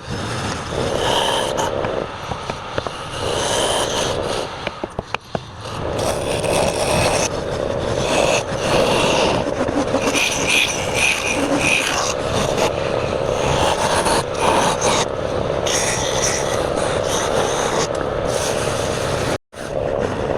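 Wood lathe turning a workpiece while a hand-held turning tool cuts into the spinning wood: a steady scraping hiss, rougher with a few clicks about five seconds in, and a momentary drop-out near the end.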